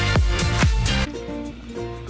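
Background electronic dance music with a steady beat of about four hits a second; about halfway through the beat drops out, leaving softer held synth notes.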